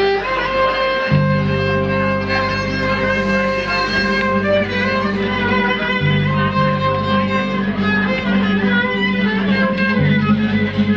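Live band playing an instrumental passage: a violin carrying a long held melody over acoustic guitar, with deep sustained bass notes that change pitch every few seconds.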